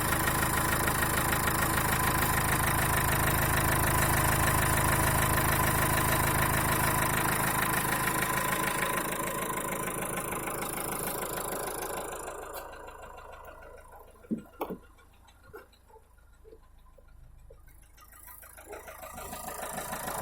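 Renault K9K 1.5 dCi diesel engine idling with the knock of a faulty fuel injector. The engine sound fades about twelve seconds in, leaving a few separate sharp knocks, and grows louder again near the end.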